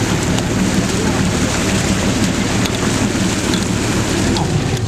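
Steady rush of splashing, churning seawater as a hooked stingray thrashes at the surface beside a boat's hull.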